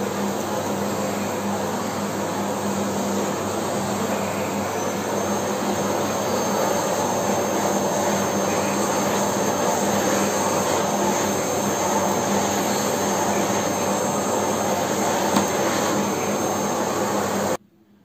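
Delta Lux DL-0836 cyclone canister vacuum cleaner running on carpet: steady motor and airflow noise, with a thin high whine joining about five seconds in. It cuts off abruptly near the end.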